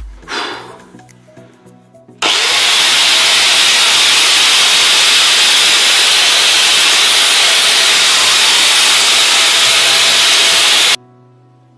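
Electric angle grinder running at full speed, a loud steady high whine-and-hiss that starts suddenly about two seconds in and stops abruptly near the end.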